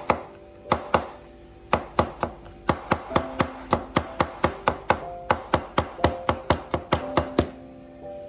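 Chinese cleaver chopping crushed garlic into mince on a bamboo cutting board: quick, even strikes about four a second. There is a short break about a second in, and the chopping stops shortly before the end.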